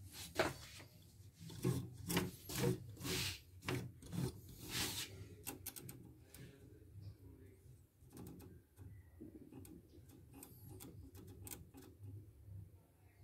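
Handling noise from an opened embroidery machine being moved about on a wooden workbench: a knock about half a second in, then a run of rubbing and scraping strokes of plastic and metal for a few seconds, followed by fainter scattered clicks.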